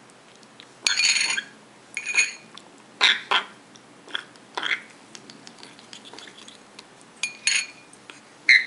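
African grey parrot chick making short, raspy begging calls while it is spoon-fed formula, roughly one a second, with a pause of a couple of seconds past the middle.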